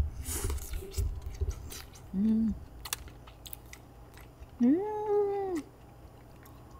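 A woman chewing a mouthful of food and humming 'mmm' with her mouth closed in delight: a short low hum about two seconds in, then a longer, higher hum that rises and holds for about a second.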